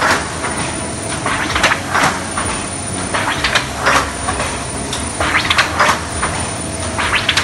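Automatic tinplate sheet feeder of a can-making line running: a steady machine hum with a burst of metallic clatter and hiss about every two seconds as each metal sheet is lifted by the suction cups and pushed through.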